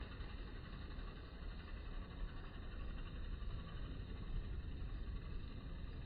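Steady low rumble of outdoor background noise, with no bird call and no distinct events.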